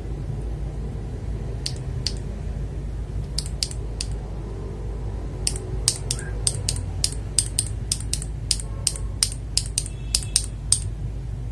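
Mechanical keyboard switches giving a run of light, sharp plastic clicks as they are handled, a few scattered at first and then about two or three a second from the middle on, over a steady low hum.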